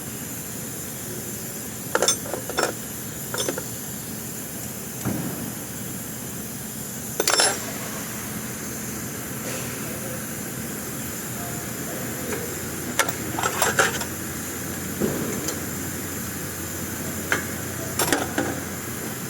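Metal tools and parts clinking and knocking against each other now and then, over a steady workshop hum.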